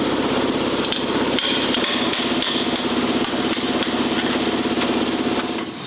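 A loud power tool running with a rapid hammering, with sharp metal knocks mixed in; it stops suddenly just before the end.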